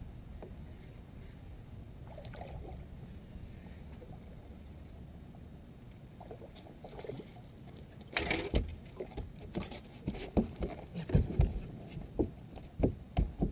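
A fish being landed on a bass boat: a quiet low rumble, then a sudden loud burst about eight seconds in, followed by a string of irregular dull thumps as the fish flops on the deck.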